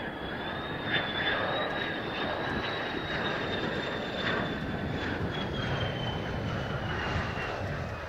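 Mitsubishi F-2 fighter's single General Electric F110 turbofan running at approach power as the jet comes in low to the runway: a steady jet rumble and hiss with a thin high whine that slowly falls in pitch.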